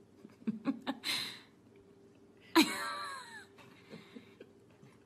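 A few soft clicks, then a loud breathy laugh from a person about two and a half seconds in, falling in pitch.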